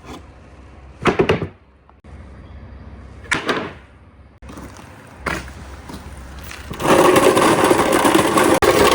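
Marble run: two short rolling clatters of marbles on the track, then about two-thirds of the way in a loud, sustained rolling rush begins and carries on.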